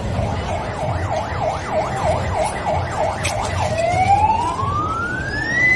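Emergency-vehicle siren: a fast yelp of quick up-and-down sweeps, about three a second, switching a little past halfway into one long rising wail that levels off at the top near the end.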